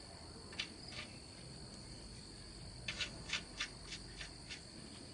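Sharp metallic tool clicks as the oil drain plug is threaded back in and tightened: two in the first second, then a run of about six, some three a second, around three seconds in. Under them runs a steady high chirring of crickets.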